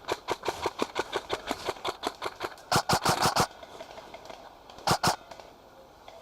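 Airsoft guns firing: a fast, even run of sharp cracks, about seven a second, then a louder dense burst about three seconds in and a short, loud double burst near the five-second mark.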